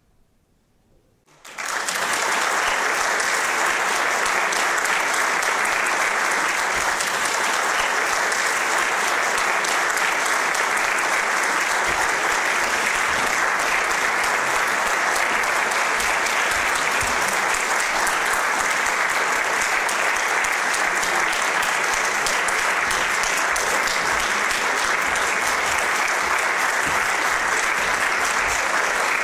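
Audience applauding: near silence for about a second and a half, then the clapping breaks out suddenly and goes on steadily and densely.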